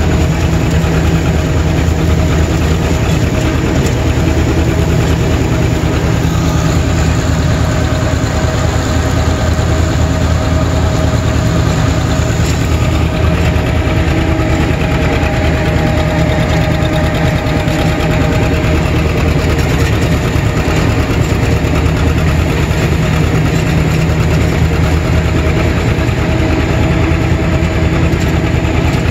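John Deere 630's two-cylinder engine running steadily under load while pulling a finish mower, heard from the operator's seat close to the exhaust stack.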